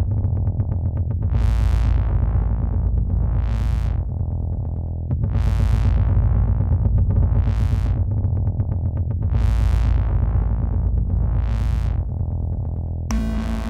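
Electronic synthesizer ringtone: a heavy bass line under a high swooshing sweep that rises and falls about every two seconds. A different tune cuts in shortly before the end.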